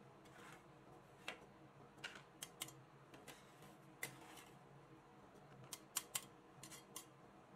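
Metal spatulas scraping and tapping on the steel cold plate of a rolled-ice-cream pan, gathering leftover frozen bits and pushing them into a paper cup: irregular sharp clicks of the blades with a few short scrapes.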